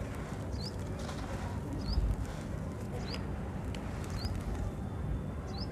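Lumps of soft sand-cement mix crushed and crumbling in bare hands, loose sand falling, with a low thump about two seconds in. A bird repeats a short rising chirp about once a second.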